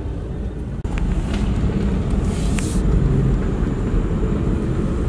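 Steady low rumble of vehicle engines heard from inside a car, with a short hiss about two seconds in.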